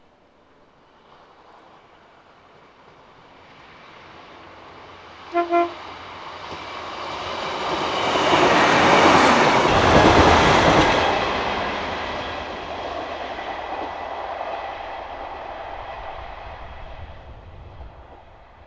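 Class 150 Sprinter two-car diesel multiple unit, with underfloor Cummins diesel engines, giving two short horn blasts about five seconds in as a friendly acknowledgment to the lineside watcher. It then passes close by: engine and wheel-on-rail noise builds to a peak a few seconds later and fades slowly as it runs away.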